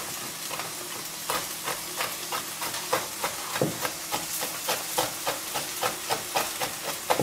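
Chef's knife chopping peanuts on a wooden cutting board: quick, even knocks, about four a second, starting about a second in. Under them, the steady sizzle of mackerel fillets frying in a pan.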